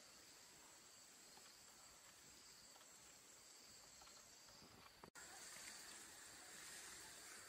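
Faint forest ambience: insects keeping up a steady high-pitched drone over a soft hiss, with a brief dropout about five seconds in.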